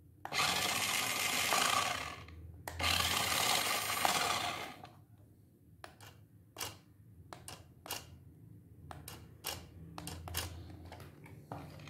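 A toy 1/14-scale RC car's electric drive motor and plastic gearbox whirring as the wheels spin freely in the air: two runs of about two seconds each, then a string of short blips as the control stick is flicked on and off.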